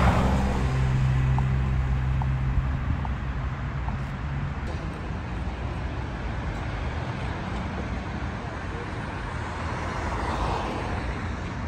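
Road traffic going by: a car passes right at the start and another swells past near the end, over a steady wash of traffic noise, with a low engine hum in the first few seconds.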